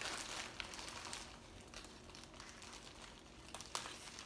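Plastic bags crinkling quietly as they are handled and opened, with a few light clicks.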